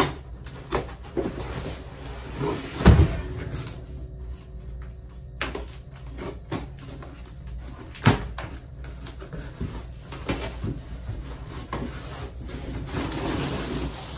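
Cardboard box being unboxed by hand: scissors cutting through packing tape, then the flaps and contents handled, with scattered knocks and thumps. The loudest is a heavy thump about 3 s in, with a sharp knock about 8 s in and steadier rustling of packaging near the end.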